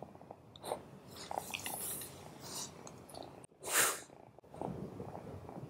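Close-up licking and chewing noises as a kitten nibbles and grooms at a golden retriever puppy's head, with soft breathing between them. One short, louder breathy burst comes a little after halfway.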